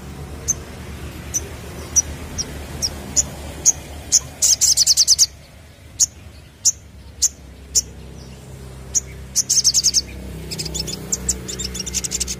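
Male olive-backed sunbird (sogon) calling: sharp, high single chirps about two a second. These break twice into a fast, rattling trill, about four seconds in and again near ten seconds, and end in a looser run of quick notes. A steady low rumble lies underneath.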